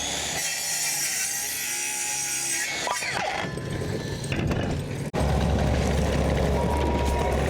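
A power saw spins up, cuts through wood and winds down. About five seconds in it cuts off abruptly, and an engine runs steadily with a low, heavy sound.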